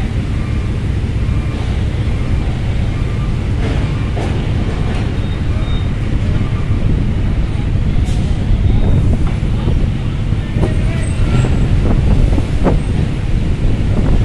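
Steady low rumble of idling and slow-moving vehicle engines, with a few short knocks.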